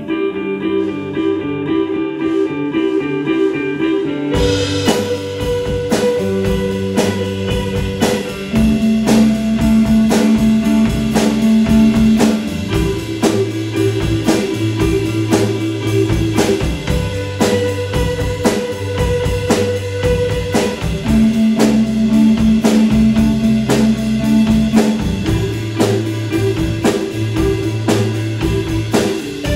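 Live rock band playing an instrumental passage: several electric guitars ringing out sustained, repeating notes, with the drum kit coming in about four seconds in and keeping a steady beat.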